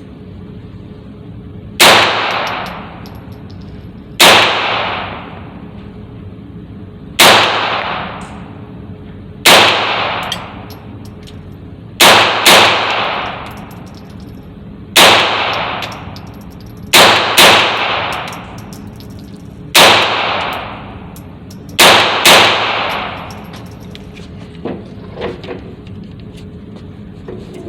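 Smith & Wesson M&P 22 firing Aguila Super Extra .22 LR rounds: about a dozen sharp shots, mostly a couple of seconds apart, with three quick pairs. Each shot is followed by about a second of echo. A few faint clicks of gun handling come near the end.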